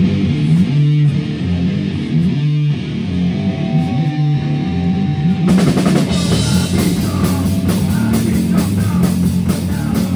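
Live rock band starting a song: an electric guitar and bass guitar riff, with the drum kit and cymbals coming in about five and a half seconds in and the full band playing on from there.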